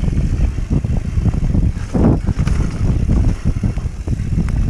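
Wind buffeting the action camera's microphone, mixed with the rumble and rattle of a mountain bike riding fast down a dirt trail. The noise starts and cuts off abruptly.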